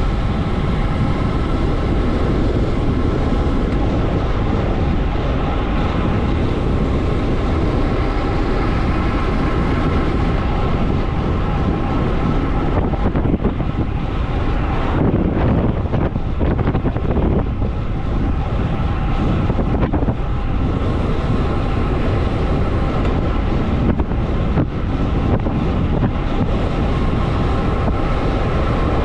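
Loud, steady wind rush on the camera microphone of a road bike descending at about 50 km/h.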